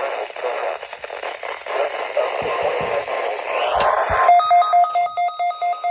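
A weather radio receiver hissing with static on a weak, distant NOAA Weather Radio signal, with a few low thumps and a brief rising sweep. About four seconds in, the hiss gives way to a run of rapid electronic beeps, about four a second.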